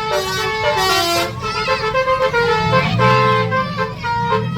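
Tour bus's telolet basuri horn playing a tune: a run of held musical notes that step from pitch to pitch, several sounding together.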